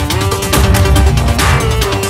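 Electronic outro music with a steady beat and sustained synth lines.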